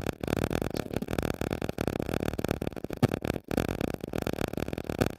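Stylus scratching and tapping on a tablet's glass screen while handwriting, a rapid, irregular run of small clicks over a steady noisy hiss.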